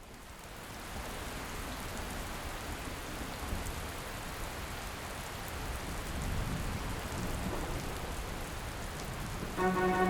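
Steady rain falling, fading in over the first second. Near the end, music with sustained chords comes in over it.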